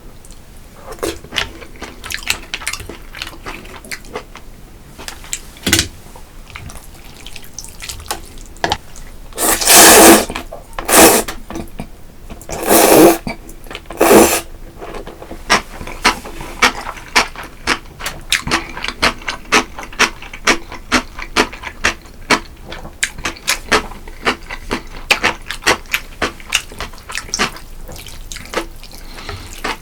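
Close-miked eating: wet chewing and mouth clicks throughout, with four loud slurps about a third of the way in.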